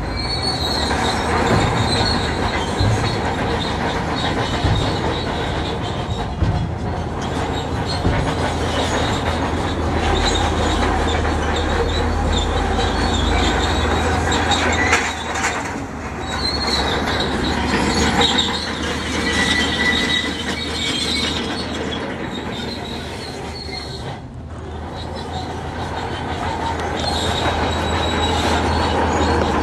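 Crawler bulldozer at work: its diesel engine runs steadily under the squeal and clank of its steel tracks.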